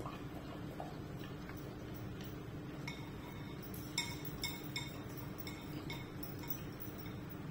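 Yellow Labrador eating from a ceramic food bowl: scattered light clinks and taps against the bowl, the sharpest about four seconds in, over a steady low hum.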